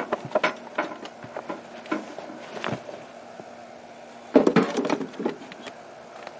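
Metal food cans clinking and knocking as they are set into a metal ammo-box pannier and picked from a crate: scattered clinks, with a louder cluster of knocks about four and a half seconds in.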